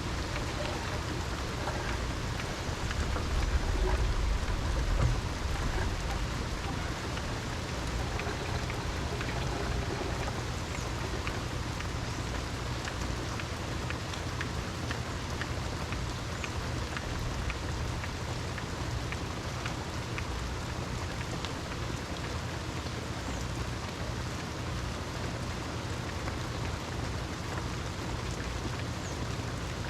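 Steady heavy rain, with many separate drops ticking. A low rumble of thunder swells and fades about three to six seconds in.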